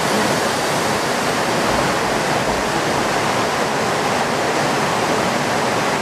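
Steady, even rush of a waterfall.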